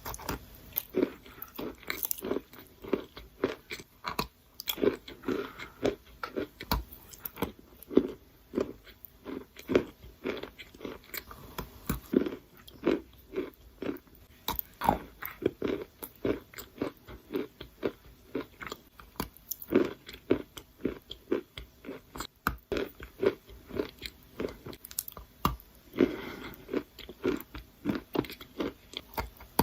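Close-up wet, sandy, grainy crunching: a damp gritty material is crushed in a quick run of short crunches, roughly twice a second.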